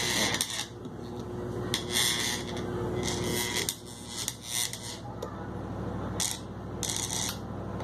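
Short scraping or rubbing strokes, about half a second each and six or so in all, over a steady low hum.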